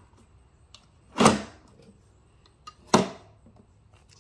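Two sharp clacks, the first a little over a second in and the second about a second and three-quarters later, each dying away quickly.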